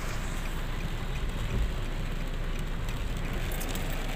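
Heavy rain on a car and wet-road tyre noise, heard from inside the car's cabin as a steady rush with a low rumble underneath.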